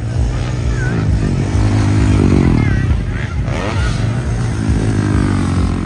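Motocross dirt bike engines revving on the track, the pitch climbing about two seconds in, then dropping and climbing again as the riders accelerate and shift.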